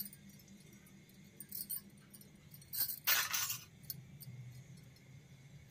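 Miniature stainless-steel toy pots and bowls clinking as they are handled and set down on a table: a few light clicks, then a louder metal clatter about three seconds in.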